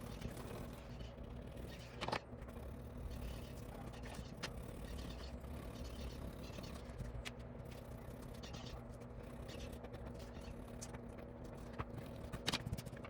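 Faint steady background hum, with a few light clicks and taps, most of them near the end.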